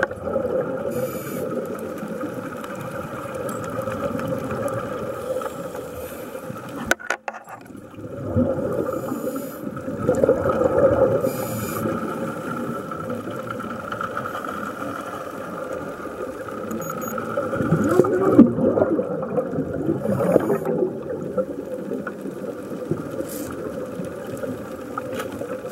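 Underwater ambience picked up by the camera: a steady hum running through the water, with bubbling and light rattles over it. There is a brief break about seven seconds in.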